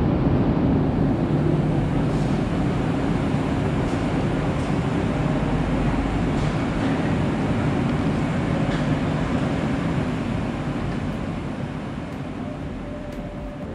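Centovalli Railway panoramic electric train running at an underground station platform, a steady low noise that slowly fades toward the end.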